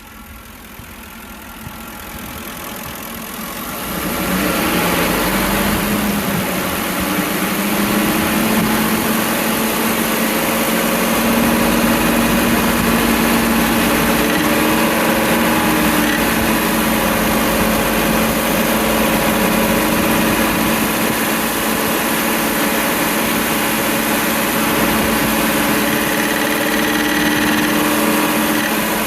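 2006 Ford 5.4L two-valve V8 running, its revs climbing over the first few seconds and then held steady at raised speed. The engine has a tapping, most pronounced around 2300 rpm, that the owner found to be rod knock.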